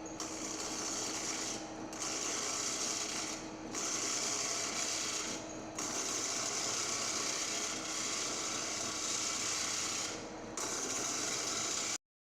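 Wood lathe running while a turning tool cuts the spinning wooden blank: a steady cutting hiss that breaks off briefly every couple of seconds as the tool comes off the wood. It stops abruptly near the end.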